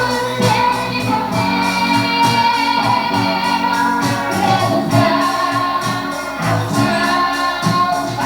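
Live gospel band music: long held melody notes over bass and a steady drum-kit beat, with singing.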